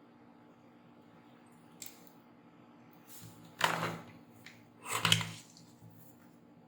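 Small metal tools and parts being handled on a workbench: a light click about two seconds in, then two short, louder clattering scrapes, one near the middle and one about five seconds in, over a faint steady hum.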